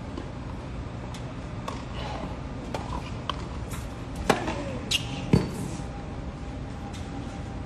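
Tennis balls struck with rackets and bouncing on a hard court during a practice rally: a series of about eight sharp hits, the loudest two about four and five seconds in.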